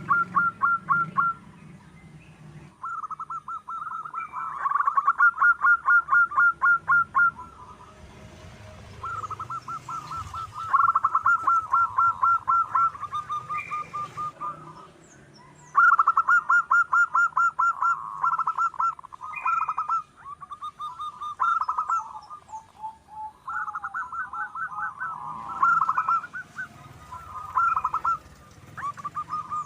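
Zebra dove (perkutut) calling in runs of rapid, staccato cooing notes, each run lasting a few seconds with short pauses between. It is the bird's vigorous song used as a lure call.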